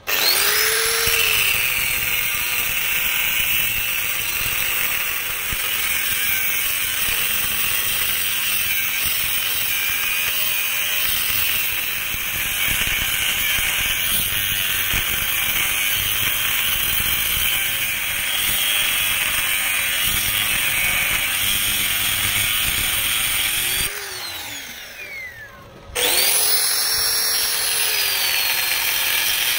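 Angle grinder with a cutting disc cutting through steel angle bar: it is switched on and spins up, then runs steadily with a high grinding hiss as it cuts. About 24 seconds in it is switched off and winds down with a falling whine, then is switched on again about two seconds later and spins up to cut again.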